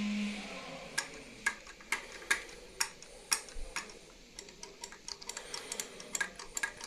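A series of sharp clicks, about two a second at first, then a quicker irregular run of lighter clicks near the end.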